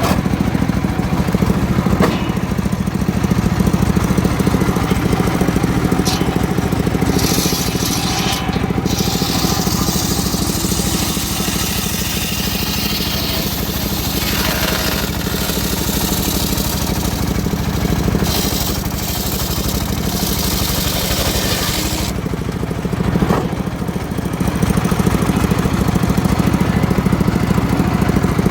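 Engine of a homemade circular sawmill running steadily. For about fifteen seconds in the middle, the blade cuts through teak and adds a bright rushing noise over the engine note.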